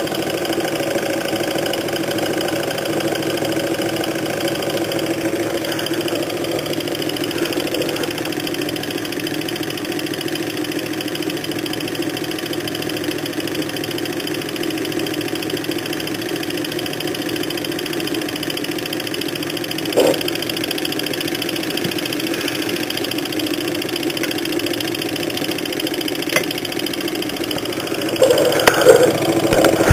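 Nexus Stirling engine running steadily, a constant mechanical hum and clatter from its flywheel, crank and linkages. A sharp click comes about two-thirds of the way in, and louder irregular knocks come near the end.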